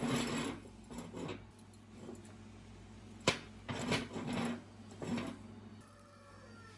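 Metal parts and tools being handled in a workshop: a series of short clinks and scrapes, with one sharp click about three seconds in, over a steady low hum.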